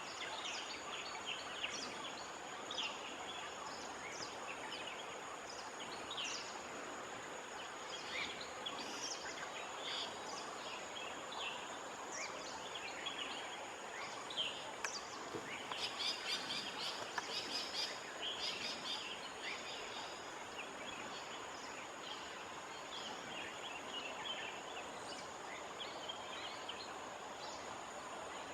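Outdoor rural ambience: many short bird chirps and calls scattered throughout, busiest in the middle, over a steady high-pitched insect drone and a low hiss.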